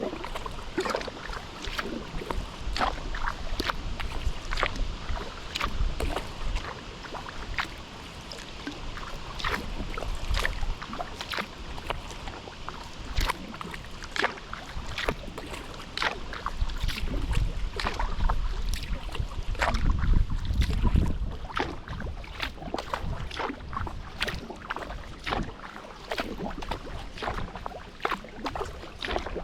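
Kayak paddling: many irregular small splashes and drips of water from the paddle and hull, over a low wind rumble on the microphone that swells about two-thirds of the way through.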